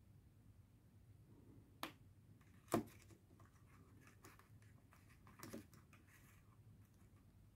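Polished tumbled stones clicking against each other and a plastic tray as they are handled: a few sharp clicks, the loudest a little under three seconds in, with faint rustling between them.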